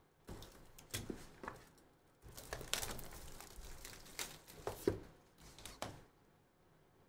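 Clear plastic shrink wrap crinkling and tearing as it is peeled off a cardboard trading-card box, in irregular crackles and sharp clicks, with the box handled in between.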